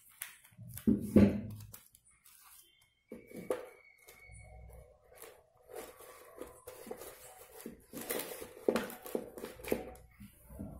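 Dry corn husk strips and a paper cone rustling and crackling as they are handled and pressed together, with a heavy handling bump about a second in.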